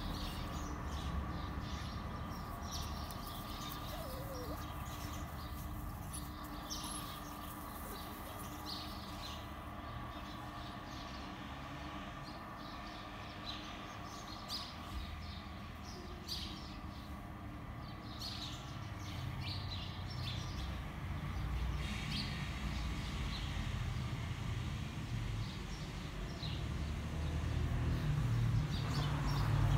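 Outdoor ambience: small birds chirp briefly again and again over a steady low rumble and a faint hum, the rumble growing louder near the end.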